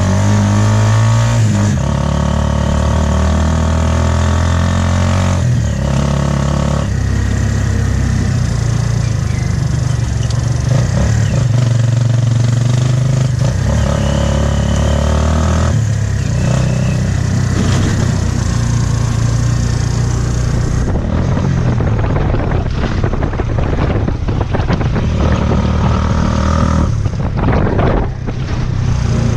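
Motorcycle engine of a Philippine tricycle (motorbike with a sidecar) running under way, heard from inside the sidecar. Its pitch shifts up and down several times with the throttle.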